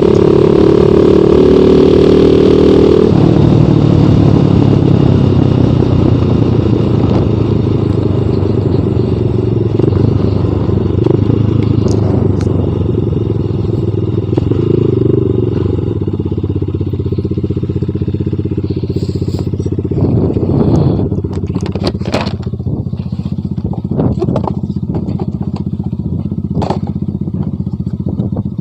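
Motorcycle engine running through an aftermarket SC Project muffler, its revs held up for the first three seconds, then dropping to a steady lower run. A few sharp knocks and clatters sound in the last third.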